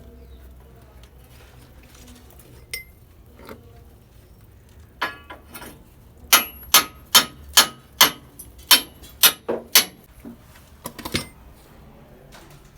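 Hammer striking metal: a few scattered knocks, then a run of about nine sharp, ringing blows at roughly two a second, and a couple more near the end.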